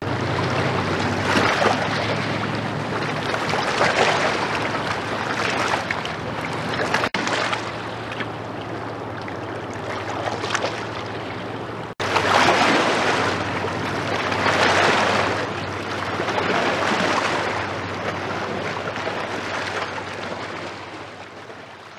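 Rushing and splashing of river water stirred up by passing inland cargo ships, swelling and easing every couple of seconds, over the low steady drone of a ship's diesel engine. The sound breaks off abruptly twice and fades out at the end.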